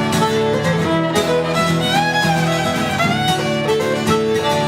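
Violin playing an instrumental break, its melody sliding between notes, over steadily strummed acoustic guitar.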